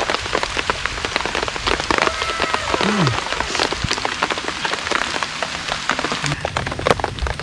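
Steady rain falling, a dense patter of many drops. About three seconds in, a person gives a short falling vocal sound.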